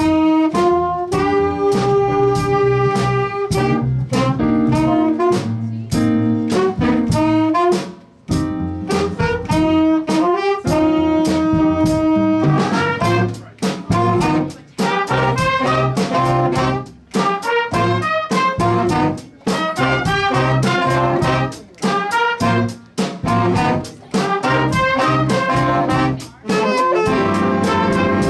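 A high school jazz band of saxophones, trumpets and trombones with drum kit playing a big-band jazz chart live. The horns play punchy phrases over a steady drum beat, with brief breaks between phrases, and grow denser and fuller from about halfway through.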